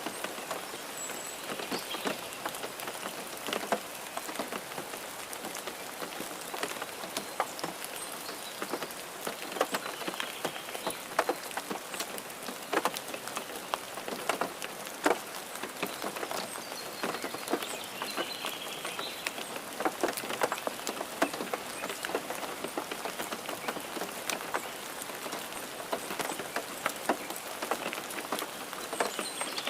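Steady rain falling, with many individual drops tapping sharply on a surface close by.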